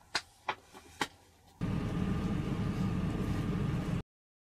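Three sharp knocks about a third to half a second apart, then a loud, steady low rumble that cuts off abruptly near the end.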